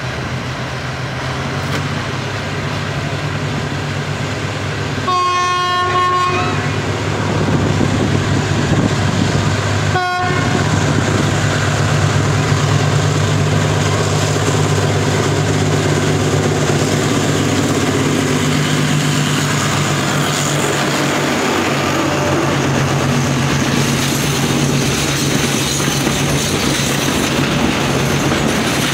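Freight train with a diesel locomotive passing through a station: a train horn sounds one long blast about five seconds in and a short toot about ten seconds in over the steady drone of diesel engines. Then the locomotive and container wagons roll past close by, the rumble of the wheels on the rails growing louder.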